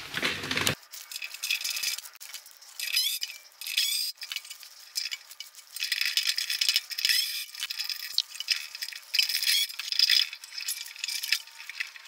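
Irregular light metallic clinks and rattles as a V-belt is worked off the metal pulleys of a bandsaw's jackshaft drive by hand.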